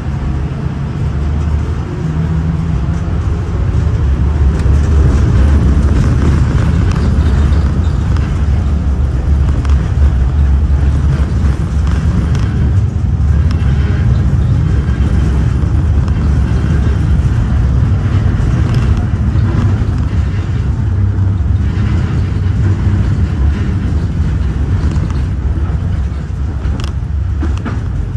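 LVS-86K tram running along snow-covered track, heard from inside the car: a steady low rumble that grows a little louder a few seconds in and then holds.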